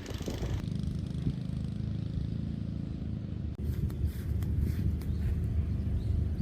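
Low, steady rumble of a vehicle on the move, changing abruptly about half a second in and again a little past halfway.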